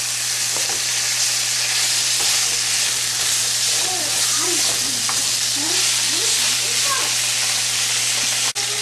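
Chicken pieces sizzling as they are sautéed in hot oil in a pan: a steady frying hiss that drops out briefly near the end.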